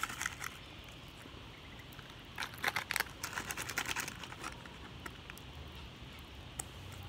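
A plastic candy packet crinkling as it is handled, with a few crackles at the start and a dense run of crackling from about two and a half seconds in, lasting about two seconds.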